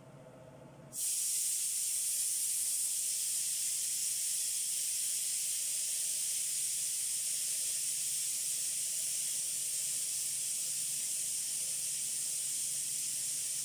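Pressure cooker venting steam in a loud, steady hiss that starts abruptly about a second in, as its pressure weight is held up with a spoon: a manual release of the built-up pressure.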